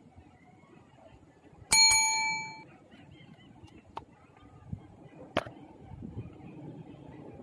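A bell ding about two seconds in: one bright ringing note with overtones that fades within a second. It is the notification-bell sound effect of a subscribe-button animation. A few faint clicks and knocks follow.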